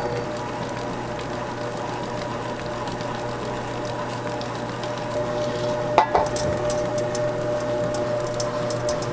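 Steady hum of a kitchen machine's motor. About six seconds in comes a single sharp metal clank, then light ticks and scrapes of a fine metal sieve being shaken as cocoa powder and flour are sifted.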